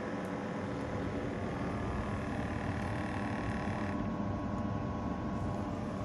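Small air pump of an automatic upper-arm blood pressure monitor running steadily as it inflates the cuff, a constant motor hum; its higher part drops away about four seconds in.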